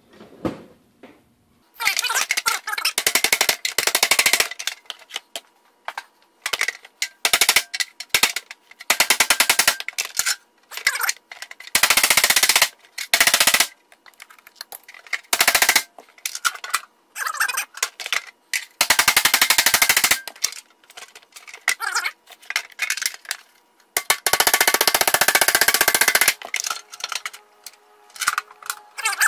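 Hammer striking rapidly on a wood block held against the dented sheet-steel panel of a tool box, in bursts of quick blows a second or two long with short pauses between: the dents being knocked out.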